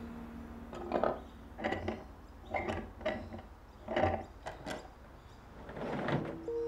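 Several door locks and latches being undone one after another from the inside: a series of about six short metallic clicks and clunks, roughly one a second.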